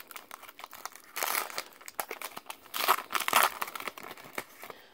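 Foil wrapper of a Topps trading-card pack crinkling and tearing as it is ripped open by hand, with two louder spells of crinkling, about a second in and again near three seconds in.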